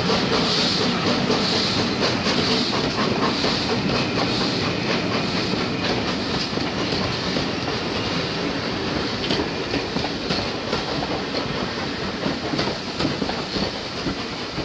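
Heritage railway passenger carriages rolling past at speed, their wheels clicking rhythmically over the rail joints. The rumble fades slowly as the end of the train draws away.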